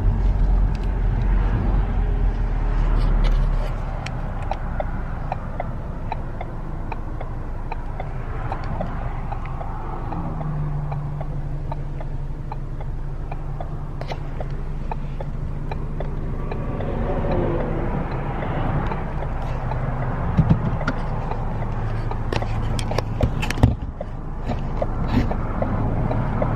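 Car interior while driving: steady engine and road rumble, with a couple of brief knocks near the end.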